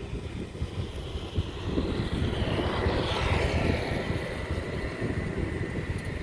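Strong wind buffeting the microphone over surf, with a wave swelling and breaking from about two to four seconds in.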